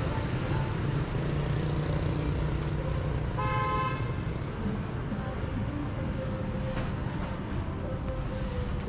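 Street traffic with engines running, and a single vehicle horn honk about three and a half seconds in, lasting about half a second.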